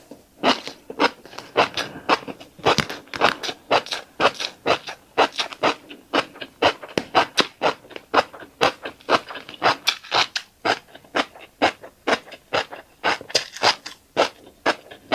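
Close-up chewing of tiny black seeds: crisp, even crunches, about three a second.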